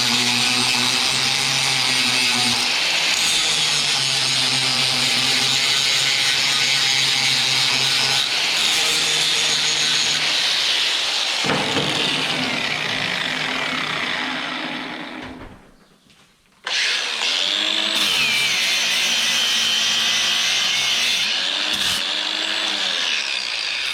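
Grinder grinding down the sheared-off stub of a steel hinge pin flush with its hinge plate. It runs steadily, winds down and stops about fifteen seconds in, then starts again about a second later and grinds on with a wavering pitch.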